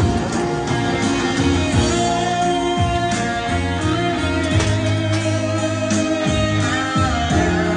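Background music: a song with guitar, its notes held steadily over a bass line.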